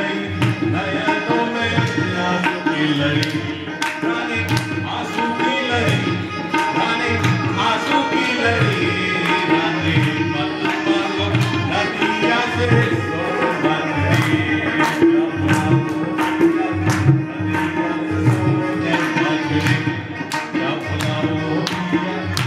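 Live Indian music: a tabla plays a steady rhythm over a sustained held note, with hand-clapping along.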